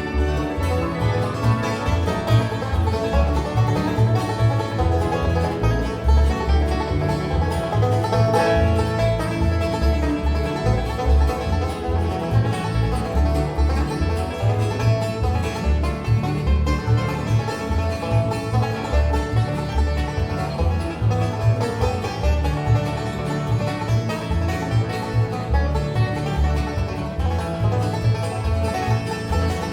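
Bluegrass band playing an instrumental breakdown: banjo and guitar picking over a steady bass beat.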